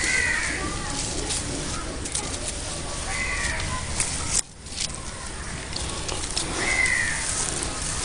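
A crow cawing: three single calls about three and a half seconds apart, over rustling handling noise.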